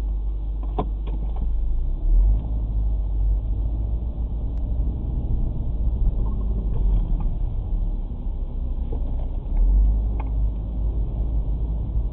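Car driving in city traffic, heard from inside the cabin: a steady low engine and road rumble that swells briefly twice, with a few faint clicks.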